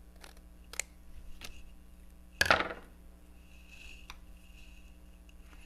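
A few light scissor snips trimming a paper tag, then one louder short knock-and-rustle about two and a half seconds in.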